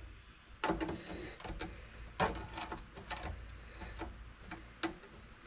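Scattered light knocks and clicks, about half a dozen at irregular intervals, as a small sheet-metal floor patch is handled and test-fitted into its cut-out.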